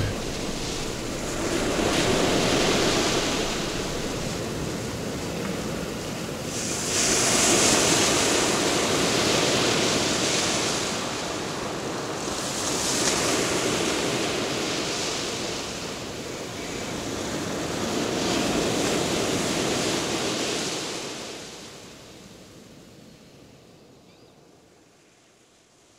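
Ocean surf sound effect: waves washing in and drawing back in about four swells roughly five seconds apart, fading away over the last few seconds.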